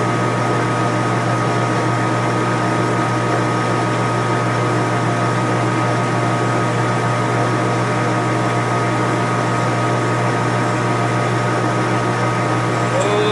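Small metal lathe running steadily while neck-turning a brass rifle case, with a strong low hum and a steady higher whine.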